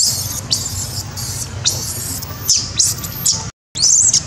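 Baby long-tailed macaque screaming: a string of thin, high-pitched squeals, each arching up and then down in pitch, coming in quick succession, cut by a brief gap in the sound about three and a half seconds in.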